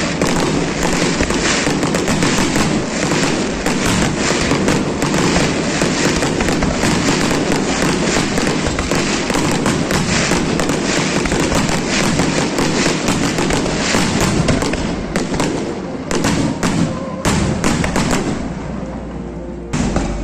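Fireworks display: a dense, rapid barrage of crackling and bangs, thinning to a few separate bangs after about fifteen seconds and dying away near the end.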